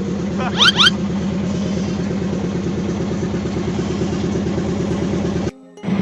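An engine running steadily at an even idle with a regular low pulse. Two quick rising chirps sound a little after half a second in, and the sound cuts out briefly near the end.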